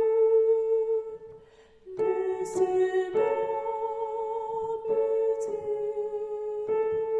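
A high voice singing a slow song in long held notes, with a short breath pause about a second in and slight vibrato on one note.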